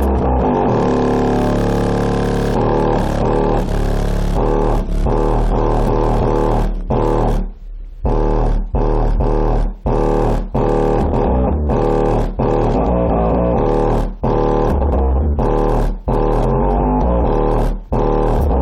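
A song with heavy bass played loud through a rebuilt JL Audio W7 subwoofer, driven by an amplifier at about 2200 watts RMS. The deep bass holds steady, with several brief dropouts in the music during the second half.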